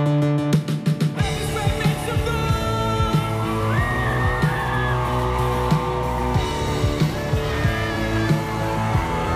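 Live worship band playing loudly through a PA: a fast run of repeated hits builds for about the first second, then the full band comes in with guitar, drums and a lead singer.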